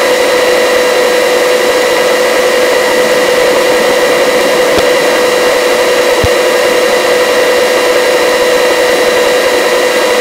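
Helicopter in forward flight, heard from inside the cabin: a steady whine held at one pitch over an even hiss, with no rise or fall.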